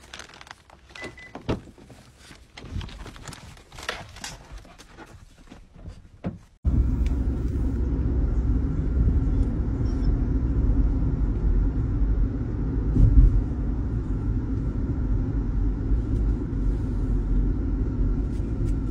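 A few light clicks and knocks, then, about six and a half seconds in, a steady low rumble of a car on the move, heard from inside the cabin.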